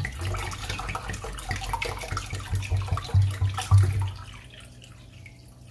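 Water poured in a stream from a drinking glass into a pot already holding liquid, splashing into it, ending about four seconds in.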